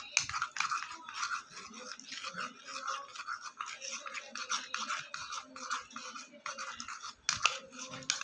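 Glue slime being stirred and worked as more activator is mixed in: a quick, irregular run of wet, sticky scraping and squishing strokes.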